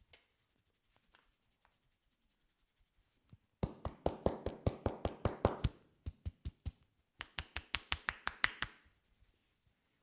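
A masseur's hands tapping rapidly on a person's head during an Indian head massage, about eight quick strikes a second. The taps come in three runs, starting about three and a half seconds in, with short breaks between them.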